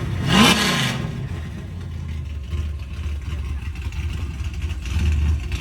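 Car engine given a quick rev blip near the start, then idling steadily, its exhaust passing through Varex mufflers with the valves closed.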